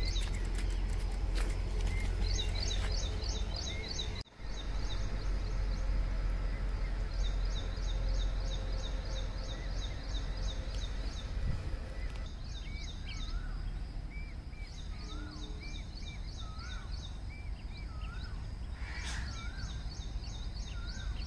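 Birds singing: runs of rapid, high, evenly repeated chirps a few seconds long, joined from about halfway by a lower call repeated roughly once a second, over a steady low background rumble.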